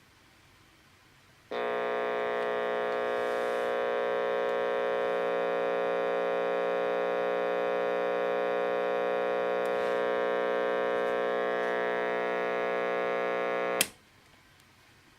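Panasonic RC-65 clock radio's alarm buzzer going off: a steady, unchanging buzz that starts about a second and a half in and runs for about twelve seconds, then is switched off with a click.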